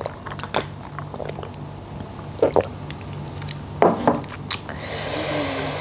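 Close-miked eating sounds: scattered small clicks and wet squishes as chopsticks pick through seafood in fish sauce, over a steady low hum. Near the end a loud hissing suck lasts about a second.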